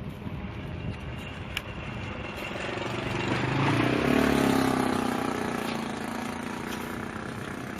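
A motor vehicle's engine passing close by, growing louder to a peak about halfway through and then fading, over steady traffic noise.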